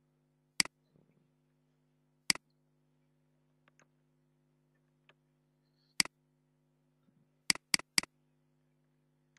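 Sharp single computer mouse clicks: a few spread a second or more apart, then three in quick succession near the end, over a faint steady hum.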